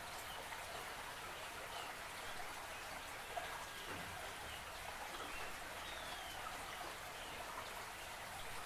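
Dawn ambience beside an estuary: a steady, dense pattering like dripping or trickling water, with a few faint bird chirps over it.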